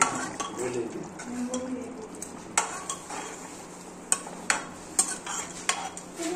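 Metal ladle stirring a thin curry gravy in a metal pot, with several sharp clinks of the ladle against the pot's side.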